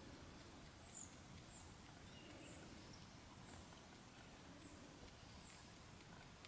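Near silence with a rabbit's faint chewing on yarrow stems, and a short, high chirp repeating about once a second.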